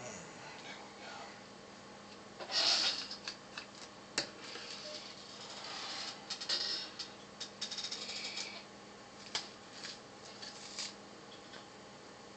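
Light clicks, taps and rattles of a disassembled hard drive's metal parts being handled: the drive body and circuit board picked up and small screws shifted on the desk. A short clatter comes about two and a half seconds in, and a sharp click about four seconds in.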